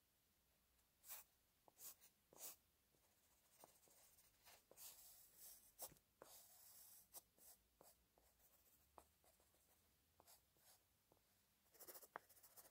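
Wooden graphite pencil scratching faintly on paper in short strokes, with brief pauses between them.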